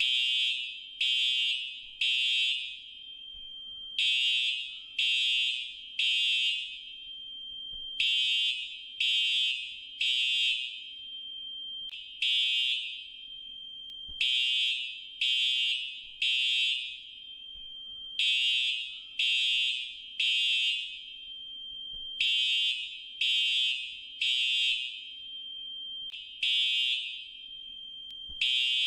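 Fire alarm sounding a high-pitched electronic tone in short blasts about a second apart, mostly in groups of three with a longer pause between groups: the temporal-three evacuation pattern.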